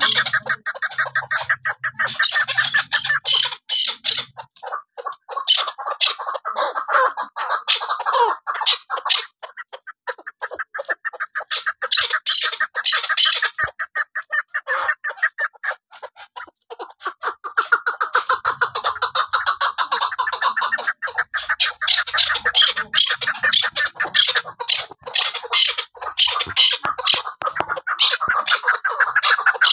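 Chukar partridge calling in fast, continuous runs of sharp chuck notes. The notes thin out and break up for a few seconds around the middle, then pick up again into a dense rattling series.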